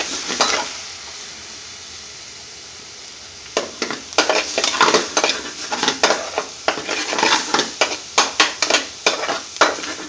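Spinach and paneer sauce sizzling in an aluminium frying pan while a utensil stirs it, scraping the pan. The stirring stops briefly near the start, leaving only the hiss of the simmering sauce. It starts again about three and a half seconds in with quick strokes, about two a second.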